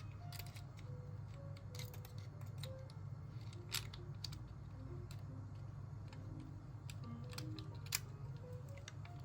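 Soft background music over a steady low hum, with scattered small clicks and taps; the sharpest come about four and eight seconds in.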